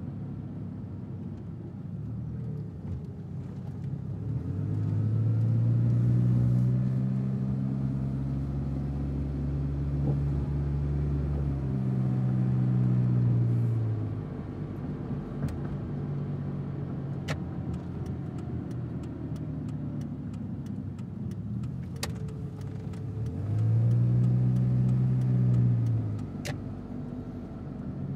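Car driving with a steady low road drone. Its engine note swells as it accelerates about five seconds in, holds, and fades around fourteen seconds, then swells again briefly near the end. A few sharp clicks are heard between the swells.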